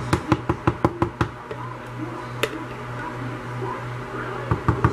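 Hard knocks against a wooden soap mold filled with soap batter: a quick run of about eight knocks in the first second and a half, a single knock near the middle, and a few more near the end.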